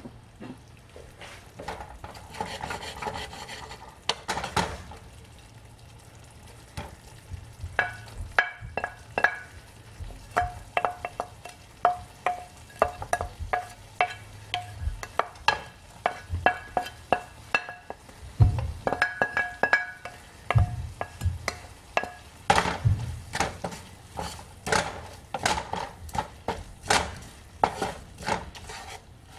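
Wooden spatula stirring and scraping cooked onions in a non-stick frying pan, with a light sizzle. Partway through, a run of light ringing clinks comes as a ceramic plate knocks the pan while chopped spring onions are tipped in. Near the end come quick, repeated knocks of the spatula against the pan as the greens are stirred in.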